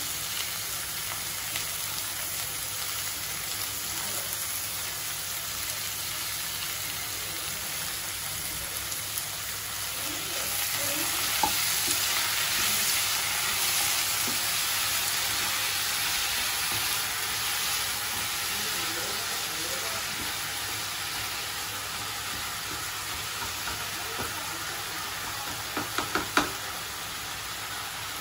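Chopped onions and tomatoes sizzling in a frying pan while a wooden spatula stirs them. The sizzle swells for several seconds midway, and a few quick knocks come near the end.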